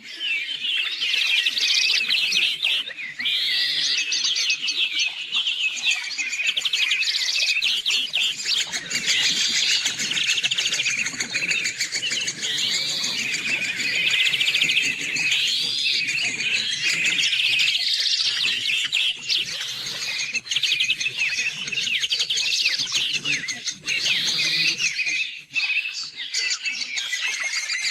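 A songbird singing a long, near-unbroken song of fast trills and repeated looping phrases.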